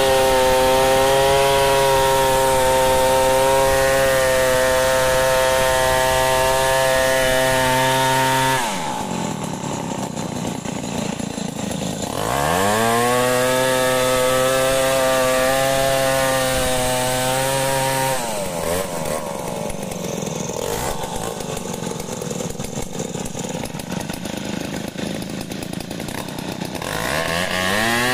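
Large two-stroke chainsaw ripping lengthwise along a log at full throttle while milling planks. The engine drops back about a third of the way in, revs back up into the cut, then falls to a lower, uneven note before revving up again near the end.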